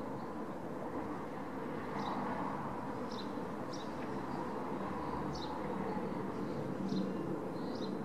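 Distant, steady jet rumble of a climbing Airbus A380 with its four Rolls-Royce Trent 900 engines at takeoff power, with small birds chirping close by in short high notes about once a second.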